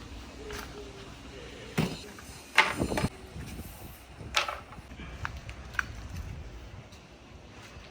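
Marbles rolling along a wooden marble-run track, a low rumble broken by irregular clacks and knocks as the balls strike the track pieces. The loudest knocks bunch up about two and a half seconds in, with another sharp one a couple of seconds later.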